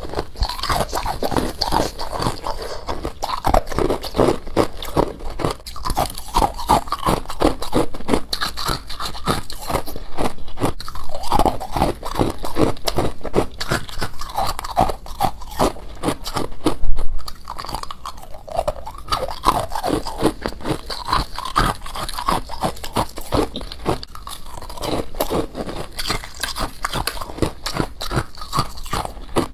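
Close-up chewing of humidifier frost: a dense, continuous run of small icy crunches, with one louder crunch a little past the middle.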